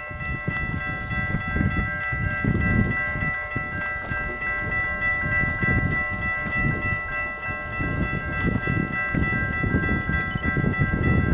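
Level-crossing warning bells ringing steadily over a low, fluctuating rumble from an approaching diesel passenger railcar and wind.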